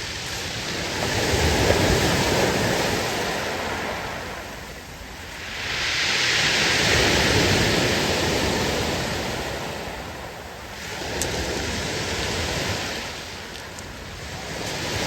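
Sea waves breaking and washing up the shore in slow surges, about one every five seconds, three times over, the middle one the loudest and hissiest.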